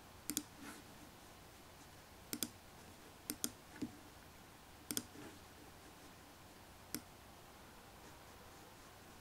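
Computer mouse clicking: quick double clicks about a second apart, then a single click about seven seconds in, over faint room hiss.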